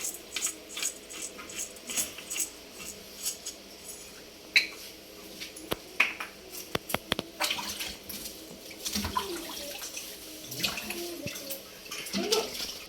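Water splashing and sloshing as something is washed by hand, with irregular clicks and knocks.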